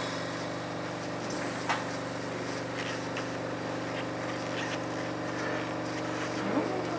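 Steady mechanical drone of a glass lampworking bench in use, with a few faint clicks of tools on glass.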